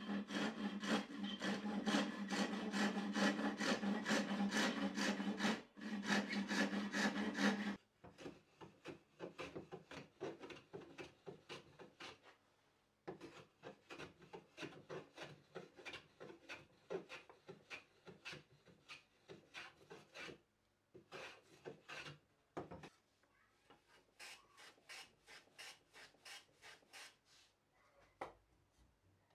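A handsaw cutting through a wooden board in steady back-and-forth strokes, stopping about eight seconds in. Then quieter, quick back-and-forth strokes of a hand tool rubbing along the edge of a wooden piece held in a vise, about three strokes a second with short pauses, and one knock.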